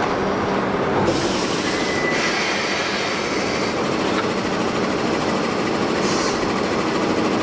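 ED75 electric locomotive close by, giving off a steady mechanical running noise. Two short bursts of hiss come through, one about a second in and one about six seconds in.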